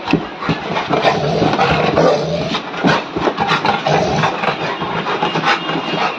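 A dog growling and grumbling in play, a continuous run of rough throaty sounds, with a few sharp knocks.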